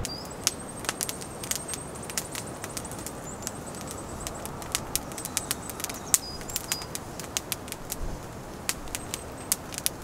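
Woodland ambience: a steady hiss of wind with scattered sharp crackling clicks and thin, high, brief bird calls.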